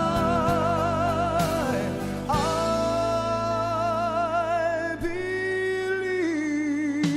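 Slow gospel-style ballad: a singing voice holds long notes with vibrato over steady band accompaniment, moving to a new note about two seconds in and again about five seconds in.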